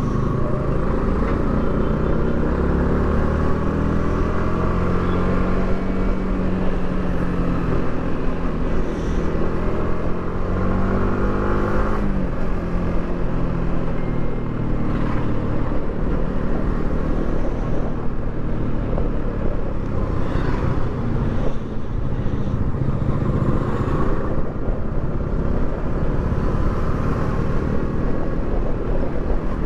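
Yamaha R15 V3 motorcycle on its stock exhaust, the 155 cc single-cylinder engine running under way. The engine note climbs slowly, drops sharply about twelve seconds in, then rises and falls with the throttle.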